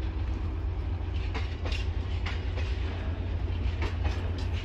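Freight train of bogie tank wagons rolling past: a steady low rumble with irregular sharp clicks from the wagon wheels on the track.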